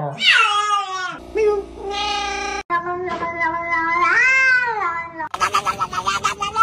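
Several cats meowing in quick succession. First comes a falling meow, then long drawn-out meows, and from about five seconds in a fast, stuttering, pulsing yowl.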